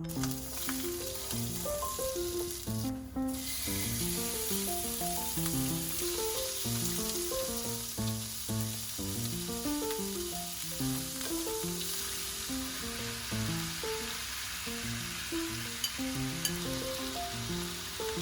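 Food sizzling as it fries in a pan, a steady crackling hiss, under background music of plucked notes.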